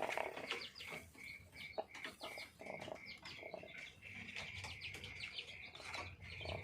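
Sick chicken making a rattling, snoring breathing sound, the sign of the respiratory cold the keeper calls 'ngorok'. A steady trill behind it pulses about three times a second.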